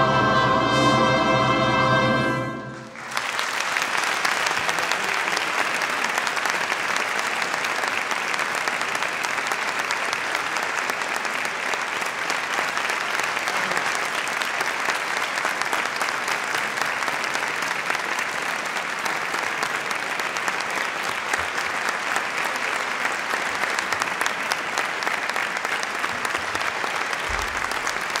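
A choir with violin and trumpets holds a final chord that cuts off about three seconds in, followed by steady audience applause.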